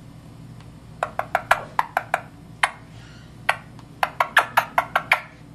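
Indian ringneck parakeet making a string of short, sharp clicks, about eighteen in irregular runs, starting about a second in.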